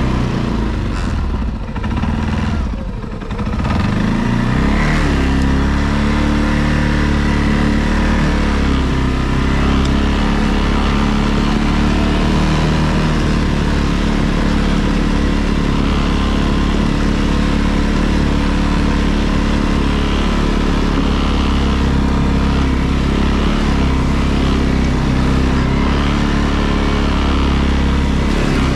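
ATV engine running steadily while riding, with a brief easing off of the throttle about two to three seconds in before picking back up.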